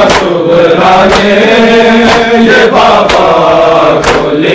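A group of men chanting a Urdu noha in unison, their voices drawn out on long held notes. A steady beat of hands slapping bare chests (matam) runs under the chant.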